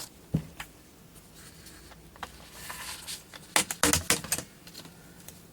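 Light clicks, taps and scrapes of an opened laptop's plastic case and small parts being handled on a workbench, with a cluster of sharper clicks about three and a half to four and a half seconds in.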